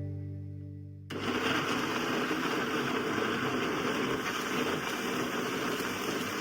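A small motor starts about a second in and runs steadily.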